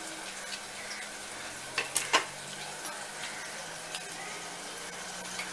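Metal knife scraping and clinking against a steel tray as squares of burfi are prised out, with a few sharp clinks about two seconds in, over a steady background hiss.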